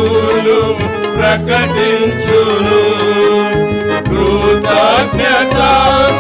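Men's voices singing a Telugu Christian hymn together, accompanied by a Korg arranger keyboard with a steady rhythmic backing beat.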